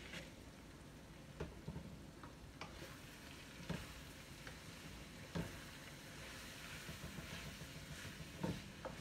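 Food sizzling in a frying pan as it is stir-fried, with a cooking utensil knocking sharply against the pan about five times.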